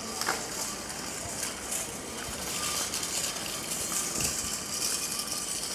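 Ambience of a busy public place: a steady hiss of background noise with a few scattered clicks and knocks.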